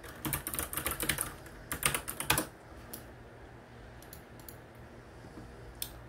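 Typing on a computer keyboard: two quick bursts of keystrokes in the first two and a half seconds, then a few single key presses.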